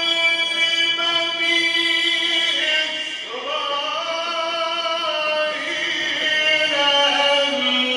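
A man's solo voice in melodic mujawwad Quran recitation. He holds one long note for about three seconds, then moves through ornamented shifts in pitch.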